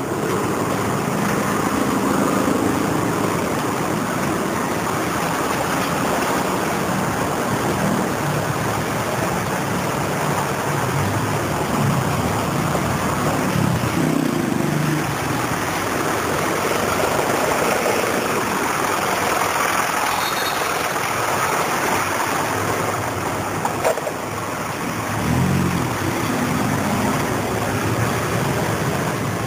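Street noise of vehicle engines running as traffic passes close by, over a steady hiss.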